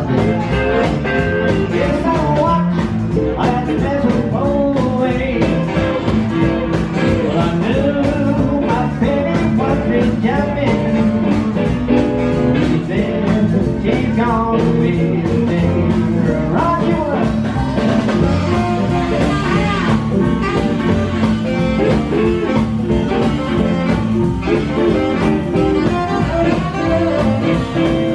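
A live swing-blues band playing: keyboard piano, upright bass, drums and electric guitar, with saxophone.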